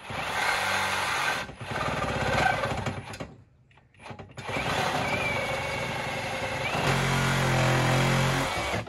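Hercules brushless reciprocating saw cutting through the Jeep's exhaust pipe to remove the muffler. It makes two short runs, pauses about a second, then makes a longer run of several seconds that stops just before the end.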